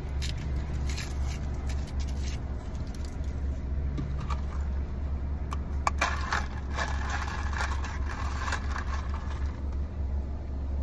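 Paper wrapper crinkling as it is torn off a plastic straw, then the straw poked through a plastic iced-coffee cup lid with a couple of clicks and a squeaky scraping as it slides down through the lid's slot. A steady low hum from the car runs underneath.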